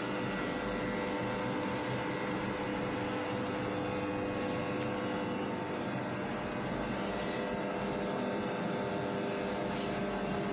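Steady mechanical hum with several steady tones underneath a noisy whirr, unchanging throughout.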